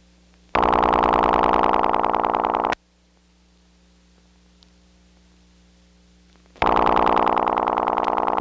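Ringback tone from an independent rural telephone exchange, heard down the phone line. It rings twice, each ring about two seconds long with about four seconds between them, and each is a buzzy, rapidly pulsing tone. A low line hum runs between the rings.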